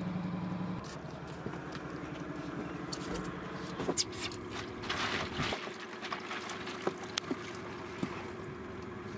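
A bucket of fresh wet fish tipped into a foam box, the fish sliding out with a rush of noise and clicks, loudest about four to five seconds in. A boat engine runs steadily underneath.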